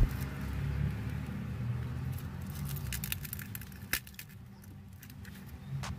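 A few sharp clicks and crackles of shattered display glass being pried and lifted with metal tweezers, the loudest about four seconds in, over a low steady hum.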